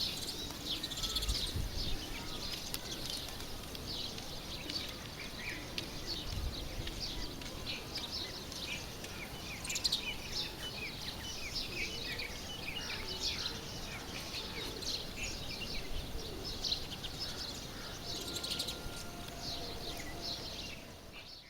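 Many small birds chirping and twittering at once, a dense, unbroken chatter of short high calls.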